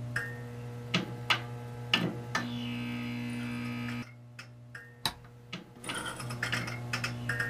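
Low steady electrical hum with sharp clicks and ticks scattered through it. The hum drops away about four seconds in and returns about a second later.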